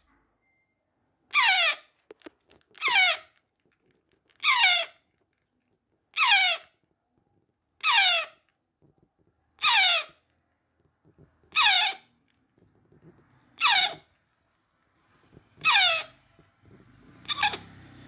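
African grey parrot chick giving food-begging calls while being hand-fed: ten loud, short screeches about every two seconds, each sliding down in pitch.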